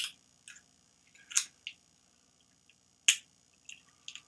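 A few short, sharp clicks and crinkles of a plastic supplement bottle and its packaging being handled as it is opened, the loudest about three seconds in.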